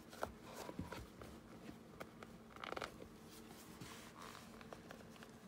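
Faint handling sounds of a metal eyelet being pushed through a punched hole in fabric-covered cardboard: scattered small clicks and rustles, with a brief rasp near the middle.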